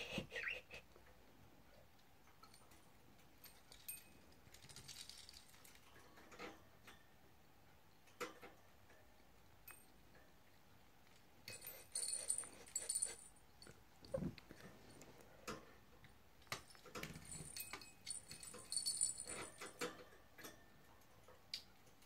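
Budgerigars clambering on a wire cage and its hanging plastic toys: scattered soft clicks and rattles, with two busier stretches of small toy-bell jingling and toy rattling, about twelve seconds in and again around eighteen to twenty seconds.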